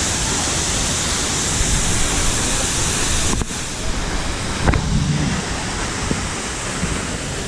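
Sikulikap waterfall rushing: a steady, loud wash of falling water. The level dips slightly about three and a half seconds in, and there is a faint short knock near five seconds.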